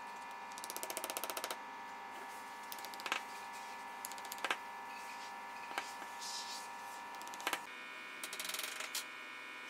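Scattered light knocks and clicks of wooden pieces being handled in woodworking, with a quick rattling run about a second in and another near the end, over a steady hum that shifts in pitch near the end.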